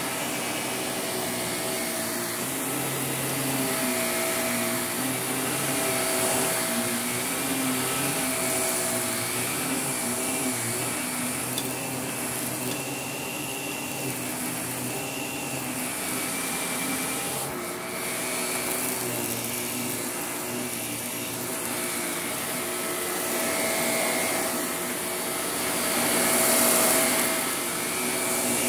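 Vacuum cleaner running steadily while pushed back and forth over carpet, its motor drone shifting slightly in pitch and loudness with the strokes.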